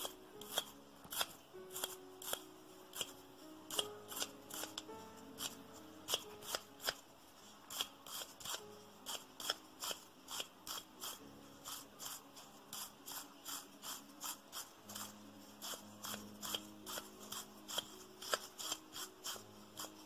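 Toothbrush bristles scrubbing the burr of a Comandante C40 MK3 Nitro Blade hand coffee grinder, brushing out coffee residue in quick scratchy strokes about two to three a second. Soft piano music plays underneath.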